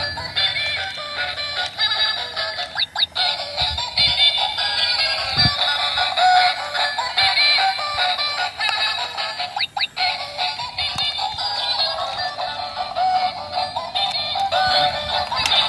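Background song with a singing voice, sounding thin with little bass.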